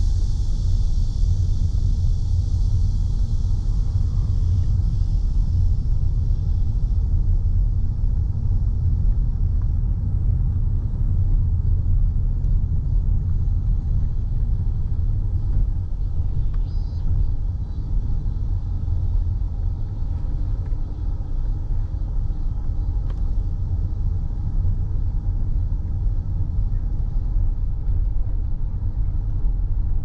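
Steady low road and engine rumble of a car, heard from inside the cabin while driving. Cicadas buzz loudly from the roadside trees at first, then fade away within the first ten seconds or so.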